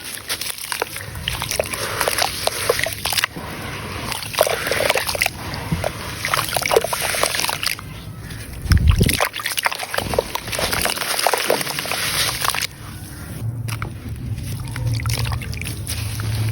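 Grainy sand-cement crumbling into water in a clay pot, sloshing and splashing with many small crackles as the pieces break up and fall in, and a heavier plop about nine seconds in.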